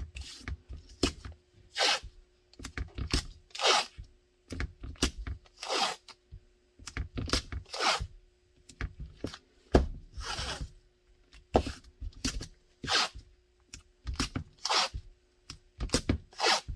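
Blue painter's tape being pulled off in strips and pressed and rubbed down onto a gun mold: a quick run of short ripping and rasping noises with light knocks from the hands.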